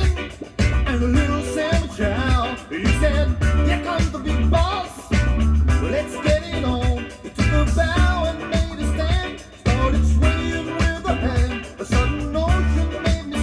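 Disco music with singing over a steady bass and drum beat.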